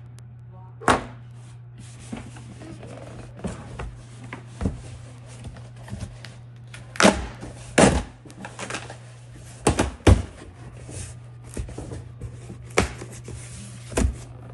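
Cardboard packaging being handled and opened: irregular thumps, knocks and scrapes, the loudest about seven, eight and ten seconds in, over a steady low hum.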